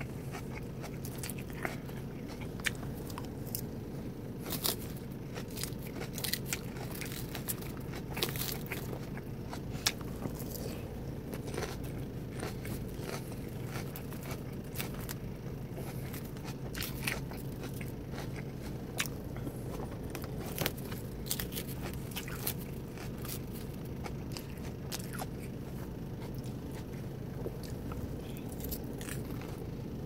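Close-up eating sounds: a salad of lettuce, chicken and boiled egg being bitten and chewed, with frequent short crisp crunches and clicks over a steady low hum.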